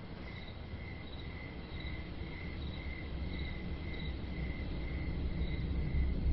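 Cricket chirping in an even rhythm, about one chirp every two-thirds of a second, over a low rumble that slowly grows louder.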